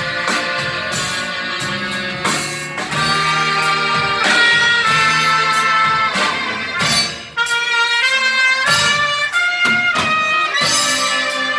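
Church orchestra playing an instrumental hymn, with brass carrying the melody in long held notes over a drum beat. The music thins out briefly about seven seconds in, then comes back in full.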